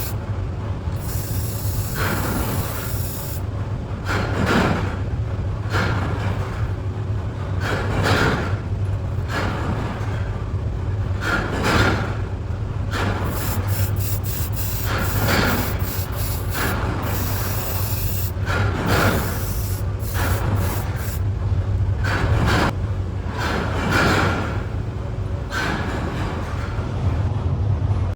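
Slow back-and-forth rubbing strokes on an abrasive surface, about one stroke every one and a half to two seconds, with a steady low hum underneath.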